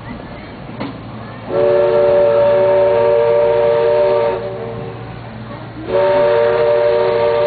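Steam whistle sounding two long blasts, each a steady chord of several tones lasting nearly three seconds, the second starting about a second and a half after the first ends.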